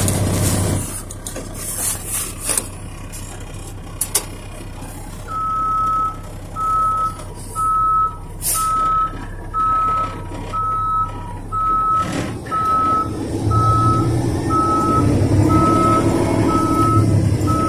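Truck backup alarm beeping about once a second, starting about five seconds in, over the steady running of a Peterbilt tractor's diesel engine as the dump truck reverses. The engine grows louder about two-thirds of the way through.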